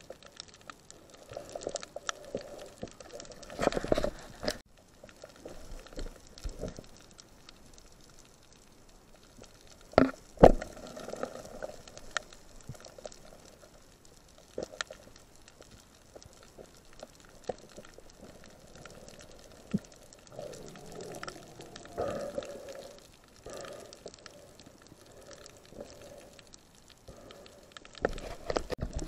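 Underwater sound around a submerged action camera: water gurgling and bubbling in uneven gushes, with scattered clicks and one sharp knock about ten seconds in.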